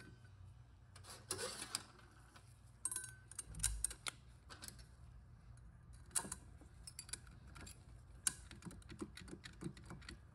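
Scattered light metallic clicks and clinks as clutch plates and parts are handled and fitted inside the steel input clutch drum of a Subaru 5EAT automatic transmission.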